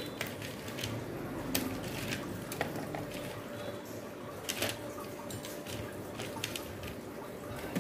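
Scattered light clicks and taps of hands handling an electric fan's motor housing and bushing parts, over a faint steady hum.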